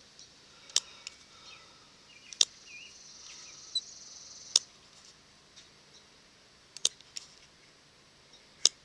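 Hand-squeezed leather hole punch snapping shut through leather, five sharp clicks about two seconds apart, one for each sewing hole punched.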